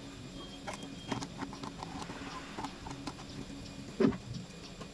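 Scattered light clicks and taps over a faint steady hum, with one louder thump about four seconds in.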